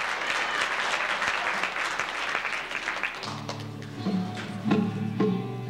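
Audience applauding, dying away about three seconds in as a band starts the song's intro: a held low chord, then rhythmic strummed chords about twice a second.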